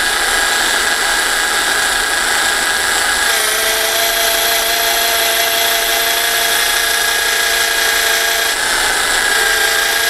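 Electric drill running steadily, driving a T+C FM114 tube facing tool as its bit faces the end of a 2-inch stainless steel tube. The machine whine changes a little over three seconds in and wavers briefly near the end.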